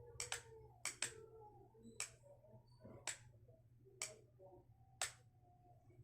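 Faint clicks of a signalling light's switch being pressed and released to key the digit three in Morse code. Two quick click pairs for the last dots come first, then two presses each held about a second for the dashes.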